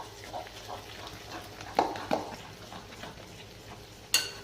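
Thick fermented chana and urad dal batter, with baking soda just added, being stirred by hand in its container: soft, uneven wet scraping, with two louder knocks about two seconds in and a sharp click near the end.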